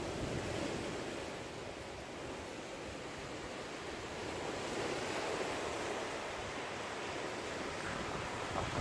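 Steady rushing outdoor noise of surf and wind, swelling and easing slowly.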